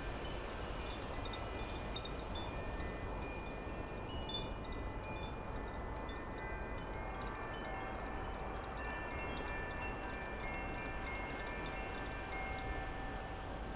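Wind chimes ringing, with many overlapping held notes at different pitches, over a steady low background hum.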